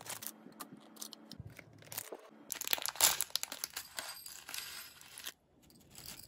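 Crinkly plastic packet of Ramen-ya-san Taro dry noodle snack handled and then torn open, the tearing and crinkling loudest in the middle. Near the end the crunchy fried noodle bits rattle out onto a plate.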